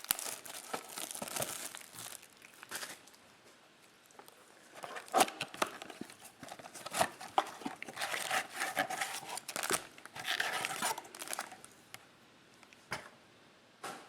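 A trading-card blaster box and its card pack wrappers being torn open, with irregular crinkling and tearing rustles. It goes quieter for the last few seconds, apart from a single short tap.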